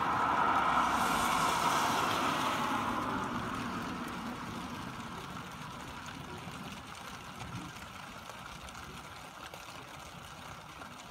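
Car driving past on a wet road: tyre hiss swells over the first couple of seconds and then fades away, leaving a quieter steady hiss.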